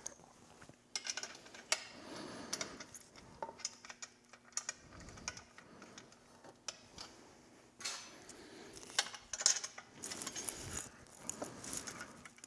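Quarter-inch bolts being handled and pushed into the holes of a metal frame by hand: irregular small metallic clinks and clicks, with the loudest clink about nine and a half seconds in.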